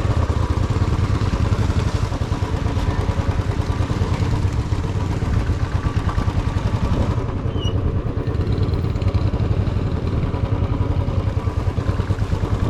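Motorcycle engine running steadily while riding, with the steady rush of road and wind noise.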